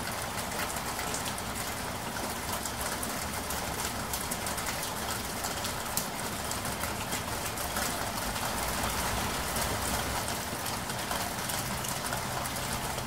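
Steady rain falling, with a dense patter of individual drops.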